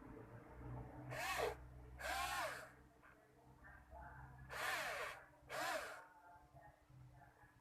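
Small electric motor whirring in four short bursts, each rising and then falling in pitch as it spins up and winds down.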